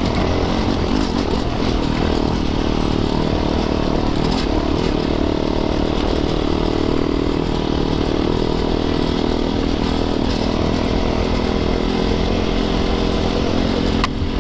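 Yamaha YZ450FX dirt bike's 450cc single-cylinder four-stroke engine running steadily under throttle while riding a trail, its pitch holding fairly even and dipping briefly near the end.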